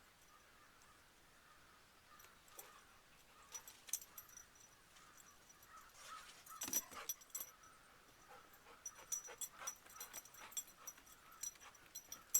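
Faint irregular light clicks and small metallic jingles, typical of a walking labrador's collar tags and steps on a boardwalk. They start about two seconds in and get busier near the end.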